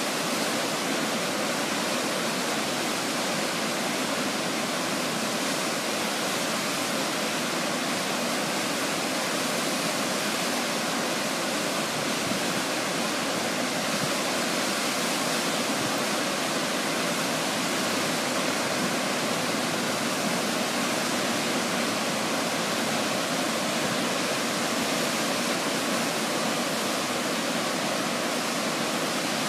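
Waterfall in high flow: a steady, unbroken rush of falling white water.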